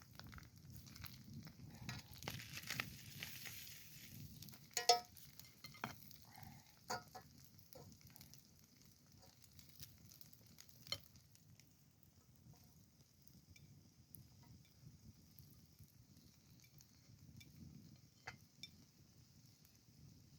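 Food frying in a pan over a campfire, with scattered clicks and knocks of utensil and pan and one sharper knock about five seconds in; a steady faint sizzle carries through the second half.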